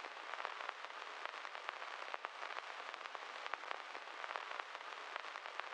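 Faint steady hiss with many scattered small clicks and crackles: the surface noise of an old recording.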